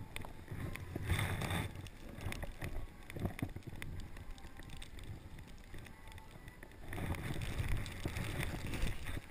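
Snowboard sliding and turning over snow, with a low rumble of wind on the microphone; louder scraping surges about a second in and again from about seven seconds.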